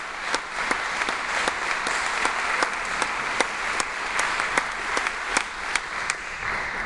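Audience applauding, with a few sharp, distinct claps standing out from the steady patter. It thins out near the end.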